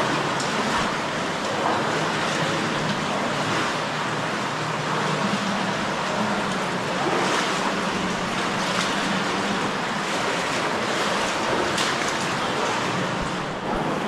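Steady rush of running water from a small stream flowing through a cave.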